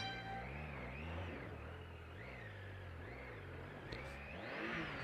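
Triumph Tiger 800XC's three-cylinder engine running at low speed through water, its pitch rising and falling about once a second as the throttle is worked. There is a sharp knock about four seconds in, followed by a brief rush of hissing noise.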